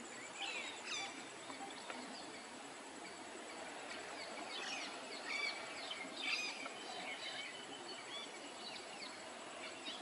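Small birds chirping in short, quick notes, scattered through and busiest a little past the middle, over a steady outdoor hiss with a faint, steady high-pitched whine.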